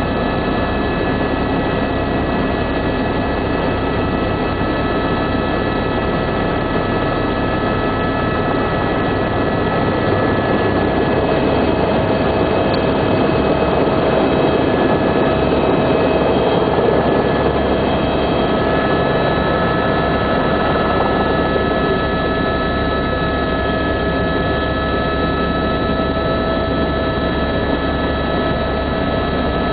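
Loud helicopter cabin noise in flight: a steady drone of engine and rotors with several steady whining tones running through it.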